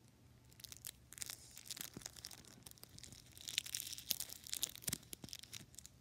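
ASMR-style close-up crinkling, scratching and clicking from fingers working right at the microphone. The sounds are irregular and crackly and grow busiest and loudest about three to five seconds in.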